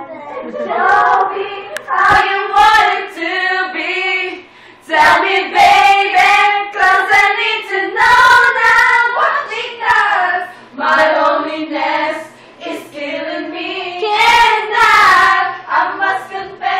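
Women's voices singing loudly, the pitch wavering, with a few sharp hits among the singing.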